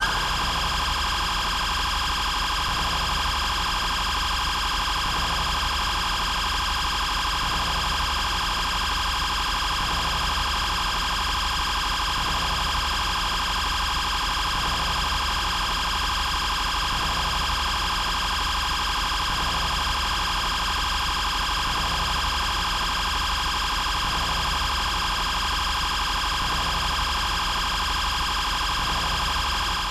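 British police siren sounding continuously at a steady, loud level.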